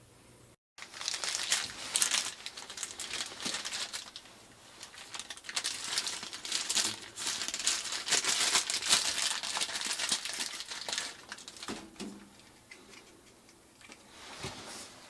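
Crinkling and rustling handling noise, dense for most of the stretch and dying down near the end.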